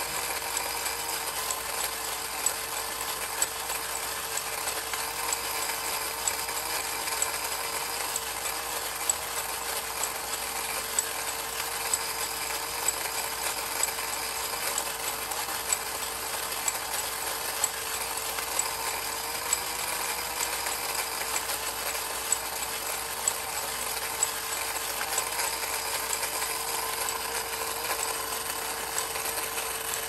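Linemar Feeding Bird Watcher battery-operated tin toy running: its small electric motor and gearing whir steadily, with a sharp click about once a second. Its chirps are faint, as the old paper bellows squeaker has deteriorated.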